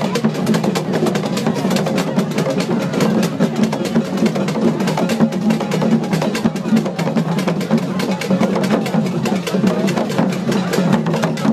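Akan Akom drum ensemble playing a fast, dense, unbroken rhythm, with voices mixed in.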